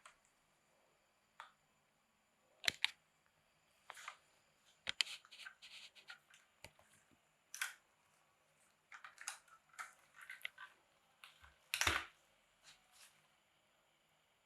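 Irregular light clicks and small knocks from handling a 1:32 diecast Audi RS6 model car, with a heavier knock about twelve seconds in.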